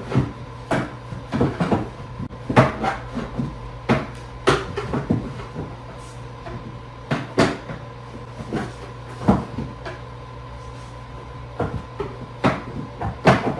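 Sectional sofa back piece being fitted to the frame: irregular knocks and clacks as it is handled and its brackets slide into their slots and click into place.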